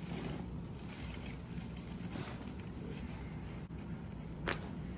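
One short, sharp crack near the end over a steady low room hum: a joint popping (cavitating) during a chiropractic spinal adjustment.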